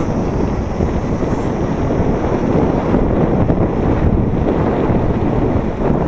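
Wind buffeting the microphone of a camera on a moving mountain bike: a loud, steady rushing.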